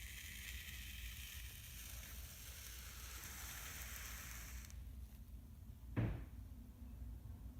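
Kinetic sand giving a grainy hiss as it is worked with a tool; the hiss cuts off suddenly a little past halfway. A single soft knock follows about a second later.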